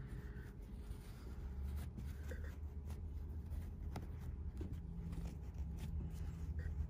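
Faint rustling and rubbing of stiffened fabric strips as hands pull and work a woven star base tight, over a low steady hum.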